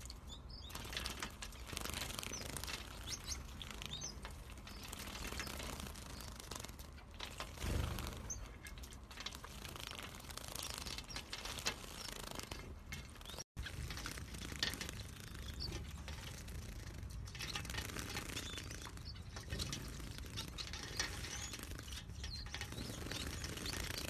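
Gouldian finches and other small finches bathing in a shallow dish of water: many quick wing flutters and splashes, with occasional short high chirps. The sound drops out for an instant about halfway through.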